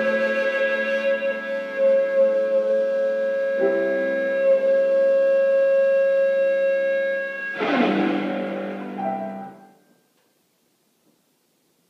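Electric guitar and piano holding long sustained chords; the harmony shifts about three and a half seconds in, and a last struck chord near eight seconds fades out about ten seconds in, closing the piece.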